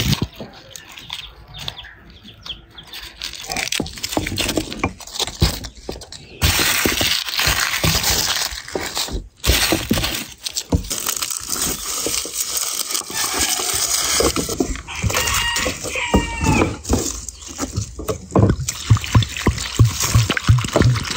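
Garlic bulbs being broken apart and the cloves peeled by hand on a wooden board: dry papery skins crackling and rustling, with many small irregular clicks and knocks of cloves on the wood.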